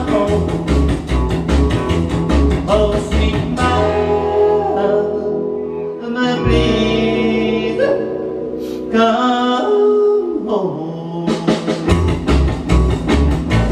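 Rock and roll record playing: a band with singing and guitar. The drum beat stops about three seconds in for a stretch of long held notes and comes back near the end.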